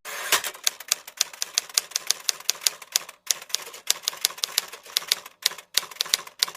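Rapid typing key clicks, typewriter-like, about five or six a second, with short pauses about three seconds in and again about five and a half seconds in.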